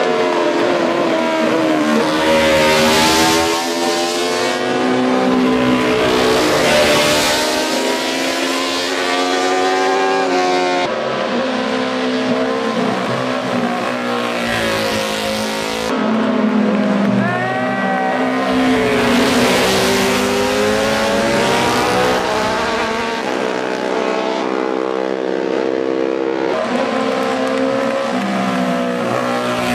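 Vintage 500 cc Grand Prix racing motorcycles passing one after another at speed, engines revving hard. Each pass rises in pitch as the bike accelerates and drops away as it goes by.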